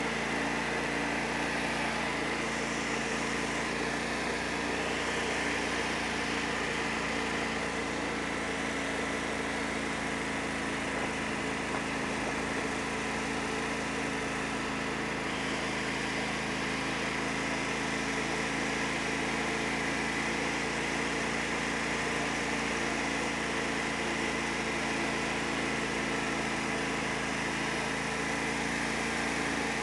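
Tractor engine running at a steady, unchanging speed.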